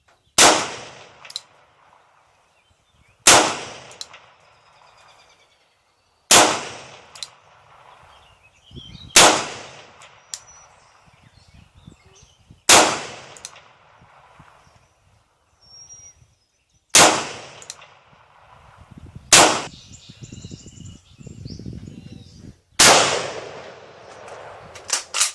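Eight single gunshots fired a few seconds apart, each with a short echo trailing off, with lighter clicks and handling noise between shots.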